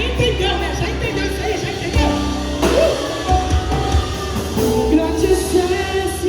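Christian worship song played by a live band with drum kit and guitar, a voice singing over it.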